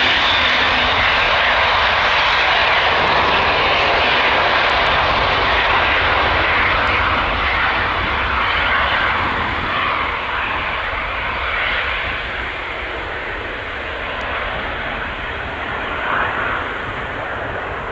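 Antonov An-124's four Progress D-18T turbofan engines running loud on the runway, the sound slowly fading.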